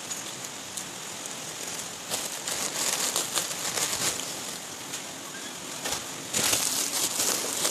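Plastic packaging being handled, crinkling and rustling in two spells, the second louder.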